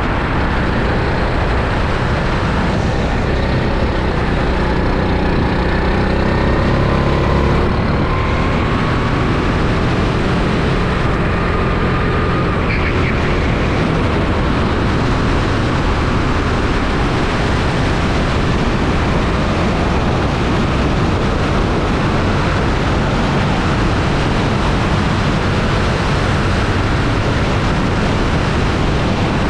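Rental go-kart engine running, heard onboard under heavy wind noise on the camera microphone. The engine's pitch rises and falls over roughly the first eight seconds, then the steady rush of wind dominates.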